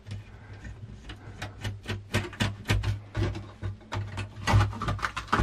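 Irregular run of small clicks and scrapes as a seized screw is worked out of the Amiga A600's rusted board and shielding, over a low steady hum.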